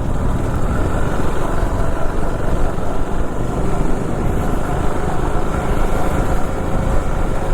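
KTM RC390's single-cylinder engine running at a steady cruise while riding, with heavy wind noise on the microphone.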